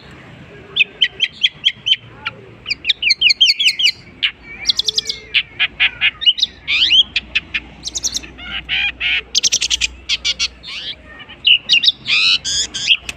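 Long-tailed shrike (cendet) singing a rapid, varied song of short chirps, trills and sweeping notes, the borrowed phrases of other birds that make up its mimicked repertoire.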